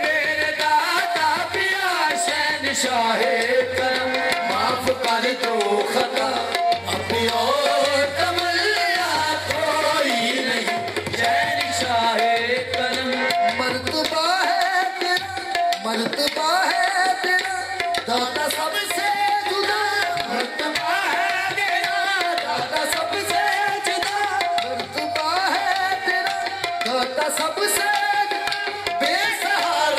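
Qawwali music: sung lines over harmonium and tabla, with the chorus clapping in time.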